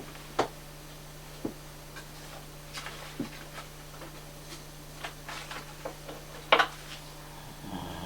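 Great Dane asleep and snoring: irregular soft clicks and puffs from its breathing, the loudest about six and a half seconds in, then a short low snore near the end.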